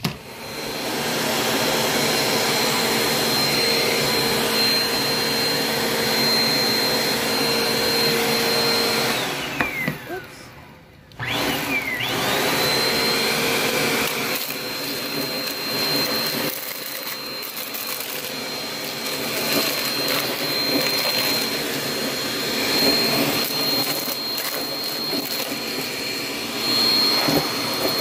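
Upright vacuum cleaner running with a steady high whine. About a third of the way in, the whine falls away as the motor winds down and nearly stops. Then it starts up again, the whine rising back, and runs on steadily.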